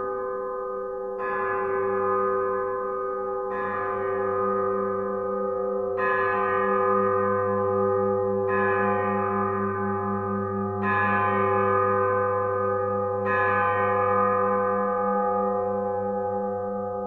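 A bell struck six times, about every two and a half seconds, each stroke ringing on under the next with a low wavering hum beneath.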